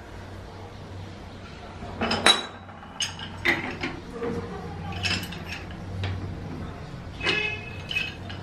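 Metal clinks and knocks as a brass tap and an adjustable wrench are handled and fitted at a wall pipe outlet: about six sharp strikes, some with a short ringing tail, the first and loudest about two seconds in.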